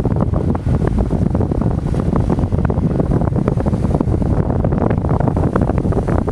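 Strong wind buffeting the microphone, a loud steady rumble, over choppy sea waves washing against rocks.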